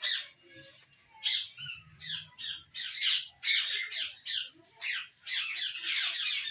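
Parrots squawking: a steady run of harsh, screechy calls, about two a second with hardly a pause.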